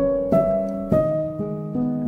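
Instrumental background music, a slow melody of held notes with a new note sounding every half second or so.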